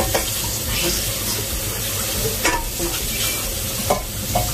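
Kitchen tap running steadily into a sink while hands are washed, with a few sharp clicks about halfway through and near the end.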